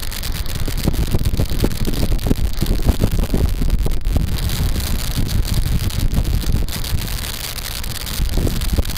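Wind buffeting the microphone in loud, uneven gusts, over a steady rushing hiss.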